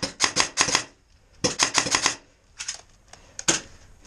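An airsoft electric rifle fires in bursts of rapid clicks: two longer bursts, then a few short bursts and single shots near the end. Its magazine is feeding badly, so the gun may be cycling without sending out BBs.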